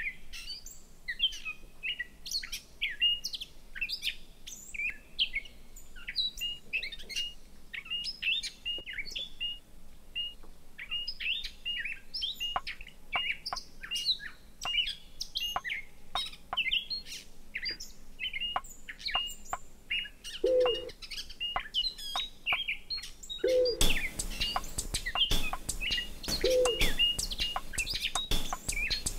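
Birdsong used as a soundtrack: many short, high chirps and quick trills in dense succession. In the last third a low note comes back about every three seconds, and near the end a soft hiss with ticks joins in.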